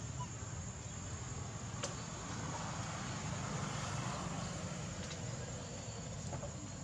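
Steady low engine hum of a motor vehicle running in the background, with a faint steady high whine over it and a single faint click about two seconds in.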